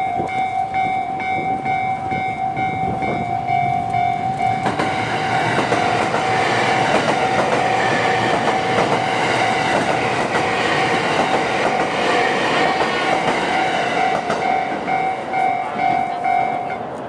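Japanese level-crossing warning bell ringing in a steady repeating ding, about two strikes a second. From about five seconds in, the Kuroshio limited express electric train passes over the crossing for about ten seconds with a loud rush of wheels on rail. The bell stops just before the end.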